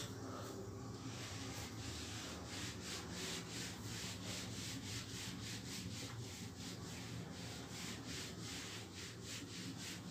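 A duster wiping a whiteboard in quick back-and-forth strokes: a faint, rhythmic rubbing at about three strokes a second.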